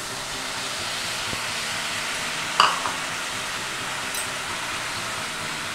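Grated jaggery and a little water sizzling and bubbling steadily in a hot pan as the jaggery starts to melt into syrup, with one short click about halfway through.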